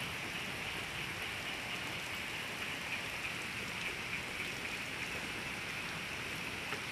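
Steady hiss of water after heavy rain, even throughout with a few faint light ticks.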